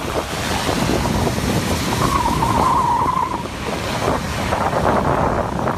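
Wind buffeting the microphone of a camera riding on a moving motorbike, mixed with road noise. A short steady tone stands out above it about two seconds in and lasts just over a second.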